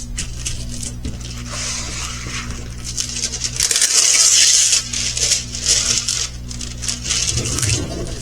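Plastic packaging and a diamond painting canvas being handled, crinkling and rustling in irregular bursts, loudest about halfway through, over a steady low electrical hum.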